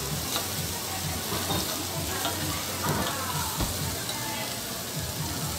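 Beef slices sizzling and frying on a hot flat iron griddle, a steady hiss, with a few light clicks and scrapes from a metal spatula working the meat on the plate.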